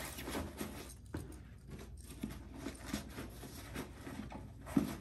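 Fabric rustling and light, irregular knocks as a sneaker is pushed into a padded nylon compartment of a shoe backpack, with one sharper knock near the end.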